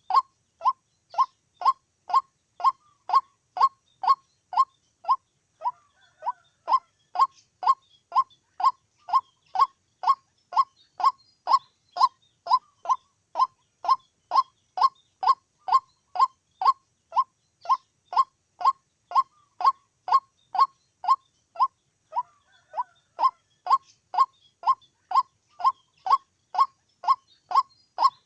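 White-breasted waterhen calling: a short, slightly falling note repeated steadily about two and a half times a second, on and on, with only a brief hitch in the rhythm twice.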